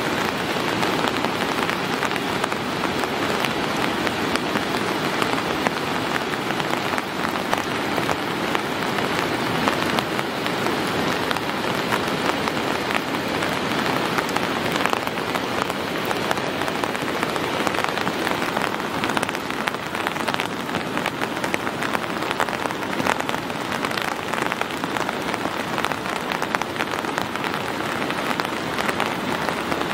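Steady, continuous rain, heard as an even hiss dotted with many small drop hits close to the microphone.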